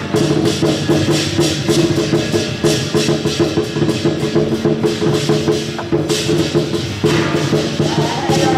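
Temple-procession music: fast, dense percussion strikes with wood-block-like clicks over steady held melody tones, a higher wavering melody line joining near the end.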